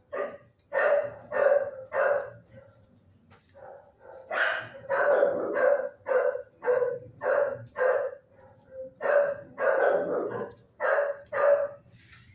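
Shelter dogs barking in a kennel block: a series of short, sharp barks, three in quick succession about a second in, then a longer run of about a dozen from about four seconds until near the end.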